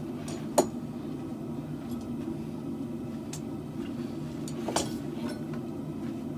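A few sharp metallic clinks of a hand tool against steel, the clearest about half a second in and near five seconds, over a steady low hum.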